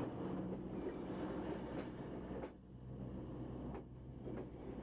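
Passenger train rolling on the rails: a steady low rumble and hum, with a few sharp clicks of the wheels, dropping in level about halfway through.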